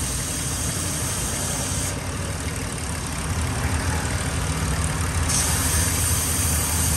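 Ford Explorer 4.0-litre V6 idling, with a steady hiss of air sucked in through a hole in a deteriorated vacuum hose running to the intake. It is a vacuum leak, the cause of the lean codes P0171 and P0174. The hiss thins about two seconds in and comes back stronger a little after five seconds.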